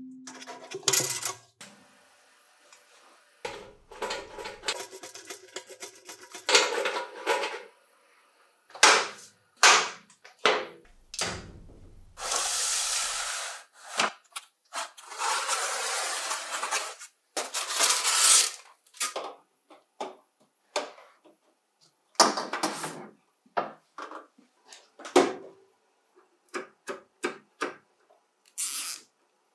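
Hands-on unboxing and fitting sounds: a cardboard box sliding and scraping across a wooden workbench, followed by plastic clicks, knocks and rubbing as fluorescent tubes are fitted into a sandblasting cabinet's light fixture. The sounds come as many separate short handling noises, broken by a few longer scraping stretches.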